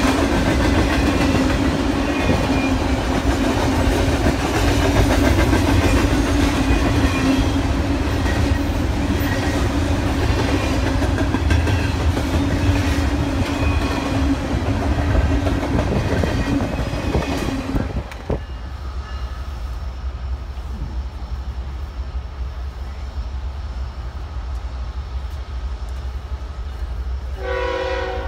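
A train passing close by, its wheels running loudly on the rails with a steady drone. The noise drops suddenly about two-thirds of the way through to a quieter rumble. Near the end a train horn begins to sound.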